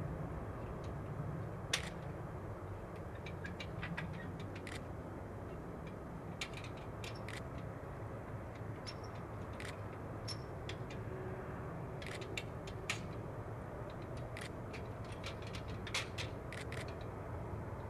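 Boeing 747-400F freighter's jet engines running at low power as it taxis, a steady low rumble. Scattered sharp clicks and ticks sound through it.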